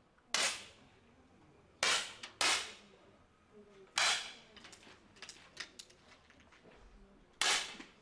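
10 m air pistols firing: five sharp pops, two of them about half a second apart roughly two seconds in, with fainter clicks in between.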